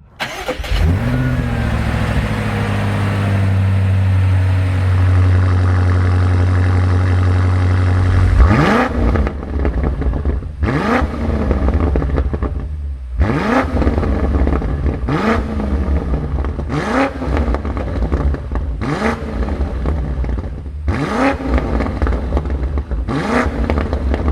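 A BMW M Competition car's twin-turbo engine starting with a quick rev flare and settling into a high idle, then about eight sharp throttle blips roughly every two seconds, each falling back to idle.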